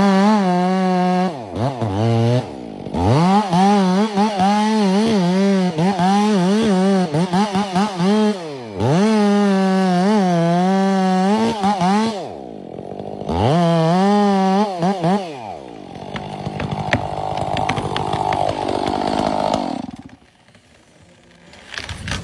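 Two-stroke chainsaw cutting wood at full throttle in several long runs, its pitch wavering under load and falling away between cuts. In the last few seconds the saw note gives way to a quieter, rougher noise, then a brief lull.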